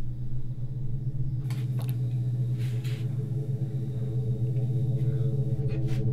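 Low, steady suspense drone from the film score, a deep hum with several layered tones that slowly builds. A few short knocks sound over it, a pair at about a second and a half to three seconds in and again near the end.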